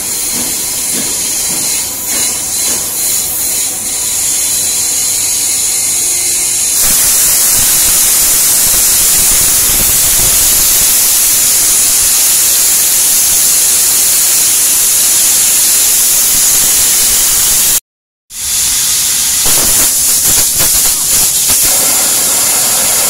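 Compressed air hissing steadily from an air hose. The hiss grows louder about seven seconds in, cuts out briefly near the end, then resumes.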